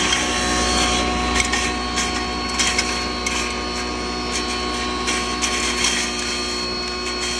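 A 10 HP double-chamber turmeric pulverizer running steadily, a constant machine hum with a few held tones, broken by scattered sharp clicks and rattles.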